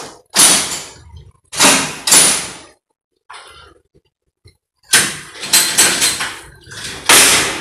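Mechanical railway signal lever frame being worked as the entry signal lever is thrown: loud metallic clanks and rattles from the levers and their wire drums, about six strokes, each dying away quickly, with short pauses between them.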